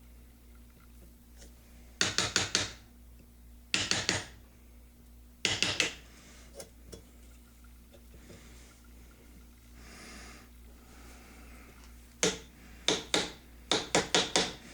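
Hammer tapping a chisel to chip down wooden dowel plugs in a gun stock: quick clusters of three to five sharp taps, a few seconds apart, with a quieter stretch in between.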